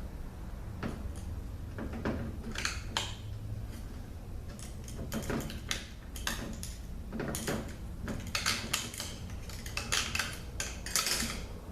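Clutch pack plates, steel plates and friction discs from a 722.6 automatic transmission, clinking and scraping against each other and the bench as they are lifted out and handled, in a string of irregular metallic clicks over a steady low hum.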